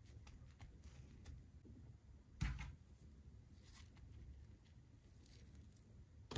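Fingers rubbing and pressing a paper transfer onto the skin of a forearm: faint soft rustling with scattered light ticks, and one sharper crinkle about two and a half seconds in.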